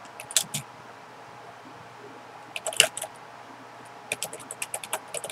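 Computer keyboard typing in short bursts of keystrokes: a few near the start, a quick cluster about two and a half seconds in, and a fast run of keystrokes near the end.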